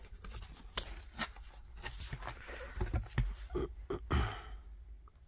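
Thick cardboard pages and lift-flaps of a children's board book being handled, with scattered soft taps and rubs, and a page being turned.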